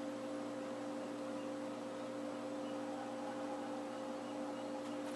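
Steady electrical hum with two held tones over faint hiss.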